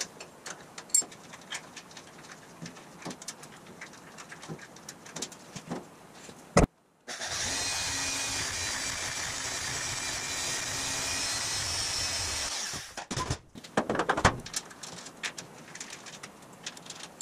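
Light clinks and taps of hand tools on steel, then a metal-cutting bandsaw runs steadily for about five seconds, cutting through a metal rod clamped in a vise. More clinking of wrenches and parts follows near the end.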